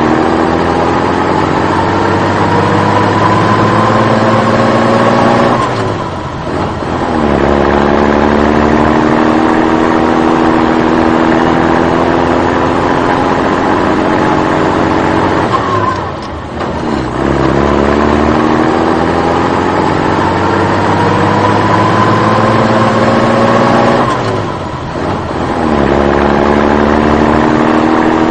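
Truck engine sound effect accelerating: the engine note climbs slowly in pitch for several seconds, drops back briefly as if shifting gear, then climbs again, three times over.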